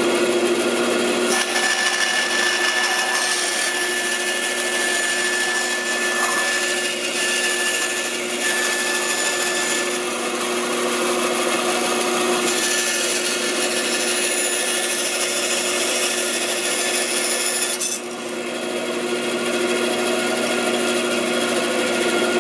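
Bandsaw running with a steady hum while its blade rips thin strips off a board of wood. The sound eases briefly about 18 seconds in.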